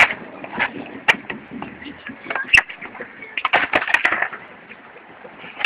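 Skateboards on a concrete skatepark: wheels rolling, and sharp wooden deck clacks from flip tricks and landings, once about a second in, again past two and a half seconds, then several in quick succession around three and a half to four seconds in.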